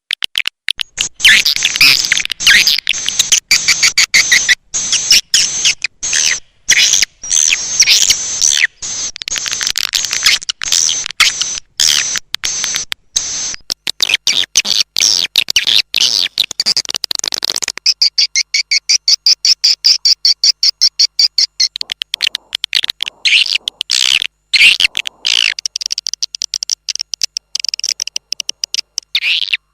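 Recorded edible-nest swiftlet calls: dense, rapid high chirping and twittering from many birds. About two-thirds of the way through it changes to a more even, fast pulsed twitter. This is the kind of lure call played to draw swiftlets in to roost.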